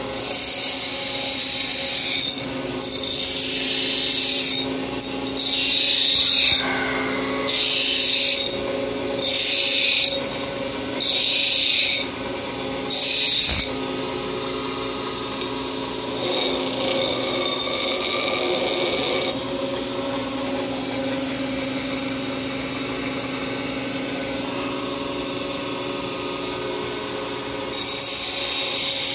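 Queen City 2 hp three-phase pedestal grinder with a 12-inch 36-grit wheel grinding the end of a rebar in a series of short passes, its motor humming steadily between them. About eight quick grinding bursts come in the first half, then one longer one. The wheel then runs free for several seconds until grinding starts again near the end.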